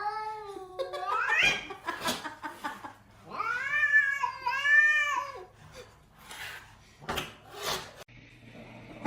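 A cat yowling in long, drawn-out meows: one wavering call that rises at its end, then two arched calls back to back a few seconds in.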